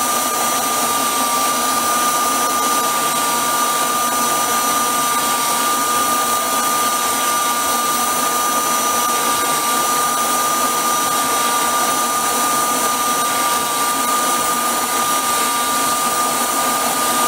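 Electric drive of a machined-aluminium scale model CAT D6 crawler, its motor and gearing running at a steady speed with a constant whine.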